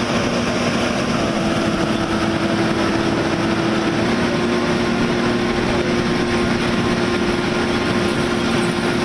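Excavator engine running steadily, a constant drone with a steady hum whose pitch steps up slightly about four seconds in.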